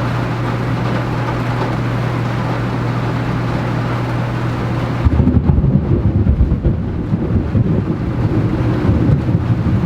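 Thunderstorm: a steady rush of heavy rain, then about halfway through a deep, rolling rumble of thunder takes over.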